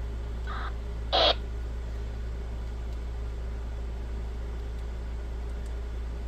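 Radtel handheld radio giving a short electronic chirp at the end of a transmission about a second in, just after a fainter blip: the roger/end-of-transmission beep, which had been switched on by accident. A steady low electrical hum runs underneath.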